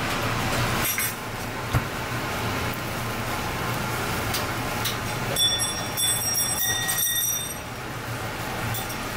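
Large clams sizzling in their shells on a wire grill over a fire, with scattered crackles over a steady low hum. A brief high metallic ringing sounds about halfway through.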